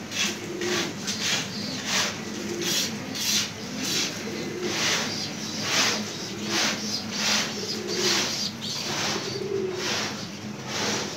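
Domestic pigeons cooing, low coos repeating about once a second, mixed with many short hissy bursts.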